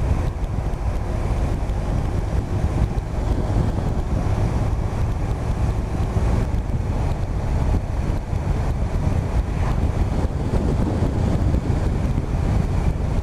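Steady wind rush on the microphone over a touring motorcycle's engine and road noise, riding along at road speed.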